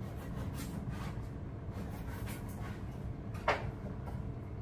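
Butter being handled and cut on a cutting board: faint soft taps and one sharper click about three and a half seconds in, over a steady low hum.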